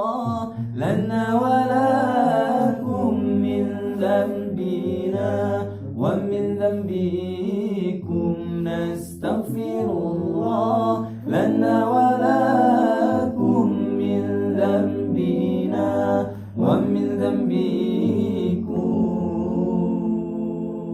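Nasyid vocal group singing a cappella in harmony, with a low held bass note under the moving upper voices; the singing tapers off near the end.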